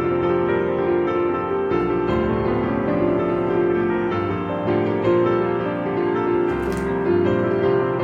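Background piano music, gentle and steady.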